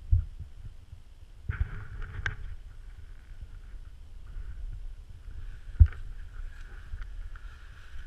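Someone crawling through a snow-cave tunnel: clothing rustling and snow crunching under hands and knees, over a low rumble of handling noise on the microphone. A few dull thumps come through, the sharpest almost six seconds in.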